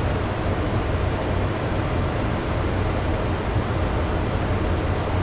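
Steady background noise: a low hum with an even hiss above it, unchanging throughout.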